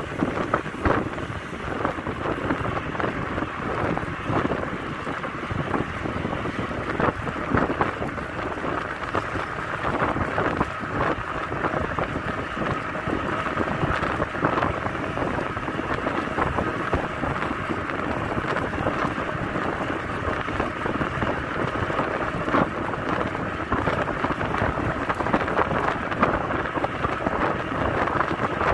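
Wind buffeting the microphone of a camera riding along on a moving bicycle: a steady rushing noise with irregular gusty bumps.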